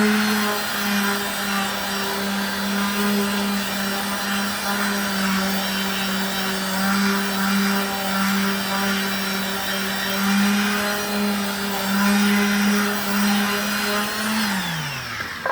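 Handheld electric sander running steadily on rough reclaimed wood boards, lightly smoothing the wood fibres: a steady motor hum with gritty rubbing noise. Near the end it is switched off and winds down in pitch, followed by a click.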